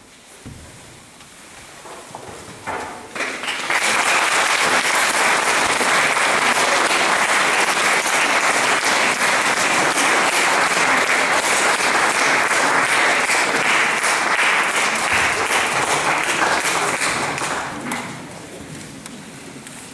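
Audience applause after a choir's song. A few scattered claps come first, then full applause sets in about three and a half seconds in, holds steady and dies away near the end.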